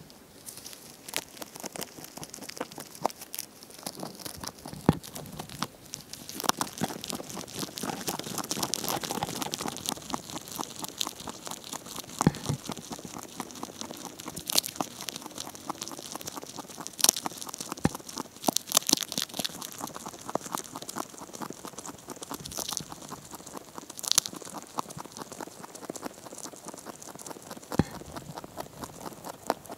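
Rabbit chewing dry hay close to the microphone: a fast, continuous crisp crunching, with a few louder snaps of stems scattered through.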